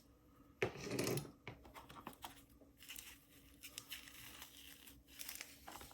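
Faint rustling and crinkling of packaging being handled, with a few small clicks; the sharpest click comes about half a second in.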